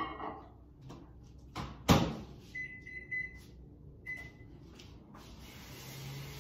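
Microwave oven in use: a loud clunk about two seconds in, then short high beeps, three close together and another about a second later. A soft hiss builds near the end.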